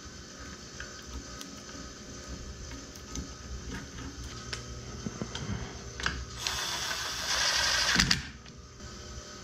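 Faint clicks and rustles from wires being handled. About six and a half seconds in, a cordless driver runs with a rattling sound for nearly two seconds, driving a screw at the pump motor's wiring box, and stops with a knock.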